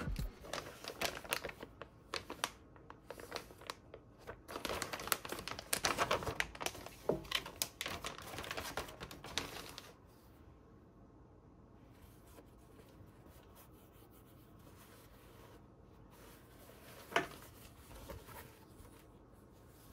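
Packaging being handled, crinkling and tearing in quick rustles for about ten seconds, then much quieter, with one sharp knock near the end.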